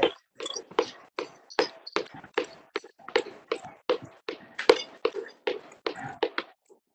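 A person doing mountain climbers at a fast pace: short sharp sounds about three a second, with silence cutting in between each one.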